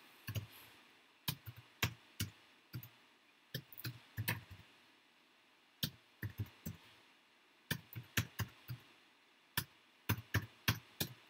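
Typing on a computer keyboard: about six short runs of a few quick key taps, with pauses of about a second between them, as numbers are keyed into a spreadsheet one cell at a time.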